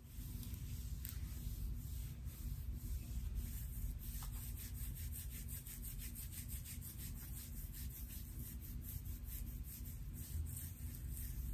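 Long fingernails scratching through short hair on a scalp, a quick, even run of dry scratching strokes that grows denser about four seconds in, over a steady low rumble.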